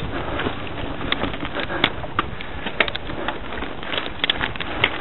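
Mountain bike rolling over a loose gravel and dirt trail: a steady rumble of tyres, with many short sharp clicks and rattles from stones and the bike.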